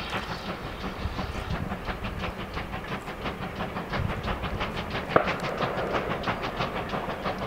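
Heritage steam train running, with a rapid, even series of beats over a steady rumble. A single sharp knock comes about five seconds in.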